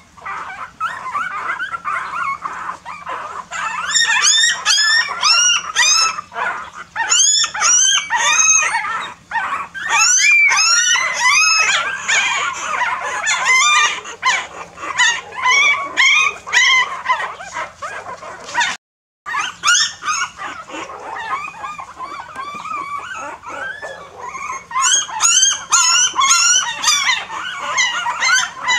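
A litter of young puppies whining and crying together: many overlapping high-pitched cries that rise and fall, swelling into louder bursts of crying several times. It is the crying of hungry pups wanting milk. The sound cuts out for an instant a little past halfway.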